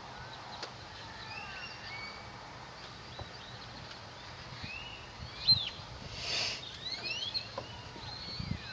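Birds chirping outdoors with many short rising and falling calls. A few small clicks come from handling, the sharpest about five and a half seconds in, followed by a brief rustle.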